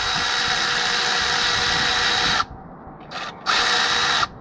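Brushless Milwaukee M12 Fuel 2557-20 cordless 3/8" power ratchet running, spinning out a bolt: one steady whining run that stops about two and a half seconds in, a brief blip, then a second run of under a second near the end.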